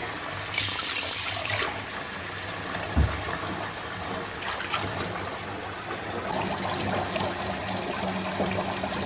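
Water running from a tap into a bathtub as it fills, a steady rush, with one dull thump about three seconds in.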